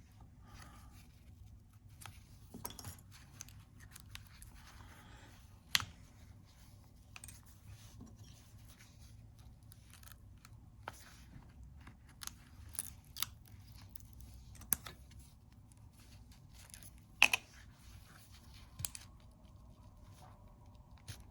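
Faint, scattered clicks, taps and short scrapes of a razor blade and small tools working at the edge of an iPhone 14 Pro Max screen, cutting through the screen adhesive to lift the display. There are two sharper clicks, about six seconds in and again near seventeen seconds.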